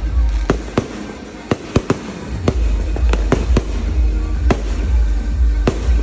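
A fireworks display: a rapid, irregular string of sharp bangs, some fifteen in six seconds, over a constant low rumble.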